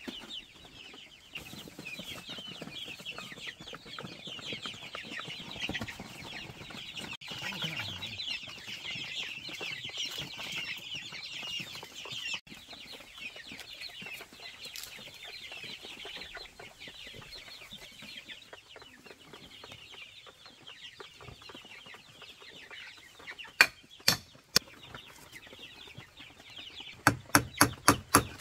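Chickens in a coop clucking and cheeping continuously. About three-quarters of the way through come three sharp knocks, and near the end a quick run of about eight strikes: a hand tool hitting a wooden stake.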